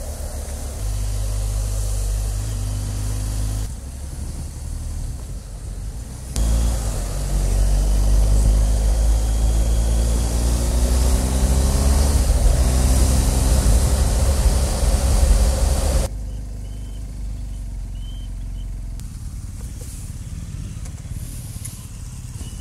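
Motorcycle riding sound from a BMW R 1250 GS Adventure's boxer-twin engine, with wind noise over it. About six seconds in it gets louder and the engine note rises as the bike accelerates. About sixteen seconds in it drops suddenly to a quieter, low engine run.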